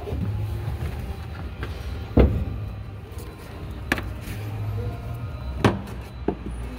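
Four short, sharp knocks over a steady low hum, the loudest about two seconds in and the rest spaced one to two seconds apart, as tools and engine parts are handled and the hand-held camera is moved about.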